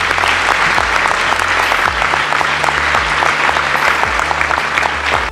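Large audience applauding: many hands clapping in a dense, steady patter that cuts off suddenly at the very end.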